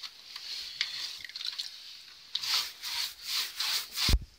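Worn paintbrush loaded with lime whitewash scrubbed against rough wooden wall boards. Faint scraping at first, then from about halfway a run of brisk hissing strokes, roughly two a second, ending in a short sharp knock.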